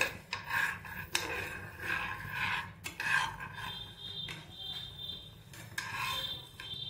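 A metal spoon stirs dry split moong dal around a hot black-coated pan: repeated scraping swishes of the loose lentils, with a few sharp clicks of the spoon against the pan. The dal is being dry-roasted until golden and fragrant.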